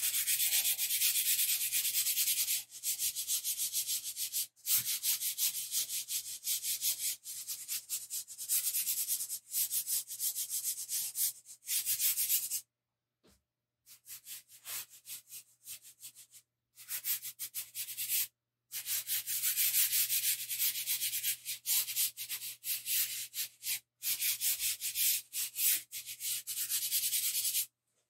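Fingers and palm rubbing soft chalk pastel into paper to blend it: a hissing scratch in quick back-and-forth strokes. The strokes stop briefly about halfway through and go fainter, then pick up again.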